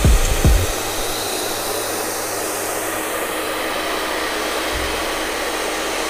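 Handheld hair dryer running steadily, a constant rushing blow of air. A couple of low knocks come in the first half second.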